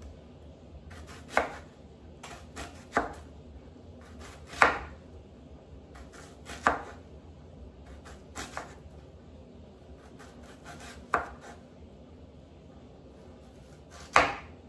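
A knife slicing a red onion on a cutting board: sharp knocks of the blade striking the board every second or two at an uneven pace, with fainter taps between.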